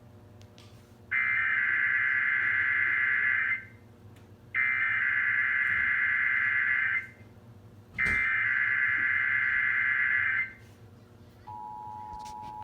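Emergency Alert System SAME header: three bursts of buzzing data tones, each about two and a half seconds long with a second's gap between them, announcing a Required Monthly Test. About a second after the last burst, near the end, the steady two-tone attention signal begins.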